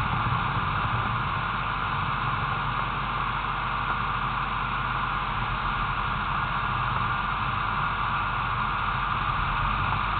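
Steady hiss over a low, even engine hum: a car idling and creeping in a traffic queue.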